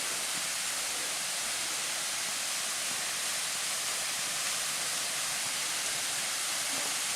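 A high waterfall pouring down steadily, a constant rushing hiss of falling water.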